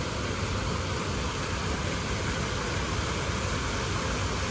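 Steady rushing outdoor background noise, even throughout, with no distinct events.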